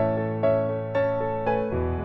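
Background music: a slow, gentle piano melody, one note struck about every half second and fading, over held low notes that change near the end.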